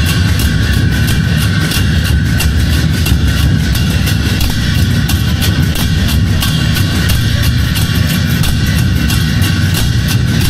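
Chinese drum troupe playing large barrel drums in a fast, dense, unbroken roll, with hand cymbals clashing rapidly over it.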